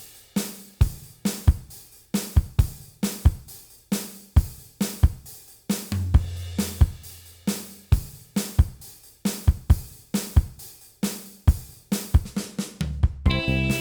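Background music: a steady drum-kit beat with kick drum, snare and hi-hat cymbals, and a low bass note held for a couple of seconds midway. Near the end a pitched melodic part comes in.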